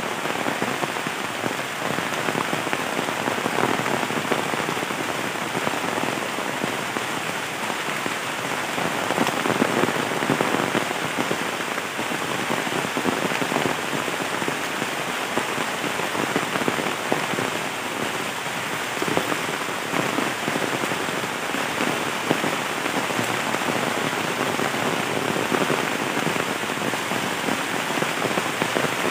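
Heavy rain falling steadily on trees and leaf-covered ground: an even, dense hiss of countless drops.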